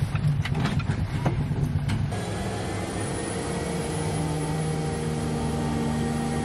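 Floatplane engine running, heard from inside the cabin: a steady drone with a faint high whine that rises slightly, and a few knocks in the first couple of seconds.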